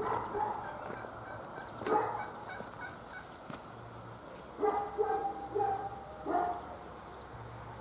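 Domestic fowl calling: several short bursts of calls, busiest between about five and six and a half seconds in.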